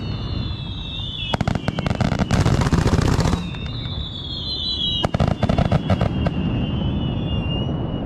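Fireworks crackling in dense, rapid runs, one starting about a second and a half in and another about five seconds in, over a low rumble. Under them runs the high whine of a tiny FPV drone's propellers, sliding slowly down in pitch.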